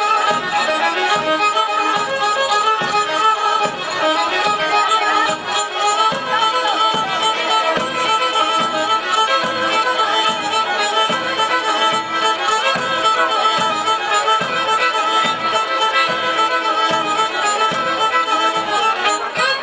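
Pontic Greek folk dance music: a bowed Pontic lyra (kemenche) plays a held, drone-like melody over a steady drum beat of about two strokes a second.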